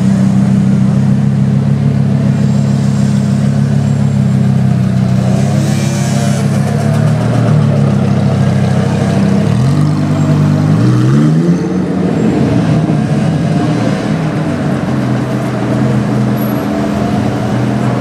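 Lamborghini Huracán Performante's 5.2-litre V10 engine running at low revs as the car rolls slowly, then the revs climb twice in quick succession about ten seconds in before settling into a steady note again.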